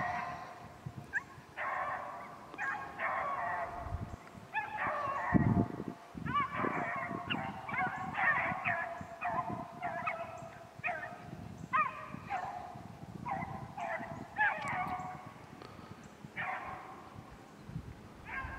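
A pack of beagles baying on a rabbit's trail, giving many short, overlapping calls that rise and fall. About five seconds in there is a brief low thump.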